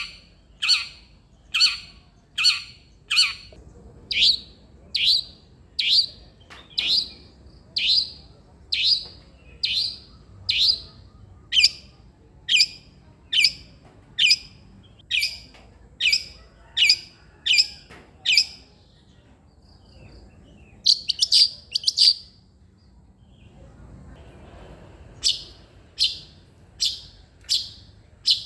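Long-tailed shrike (cendet) singing: a short, sharp note repeated about once a second, broken off after about eighteen seconds. A quick cluster of notes follows, and after a pause the evenly spaced notes start again near the end.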